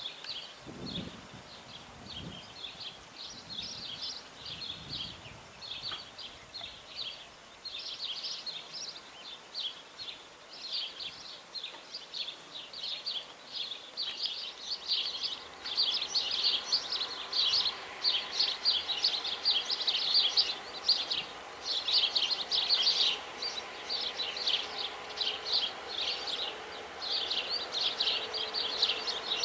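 Small birds chirping continually in busy clusters of short, high calls. From about halfway a faint low hum of a distant train grows slowly louder as it approaches.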